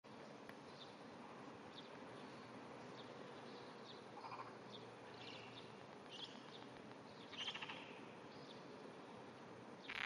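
Wrinkled frog (Glandirana rugosa) giving a short, quiet, trembling pulsed call about seven and a half seconds in. Faint scattered chirps sit in a hushed background.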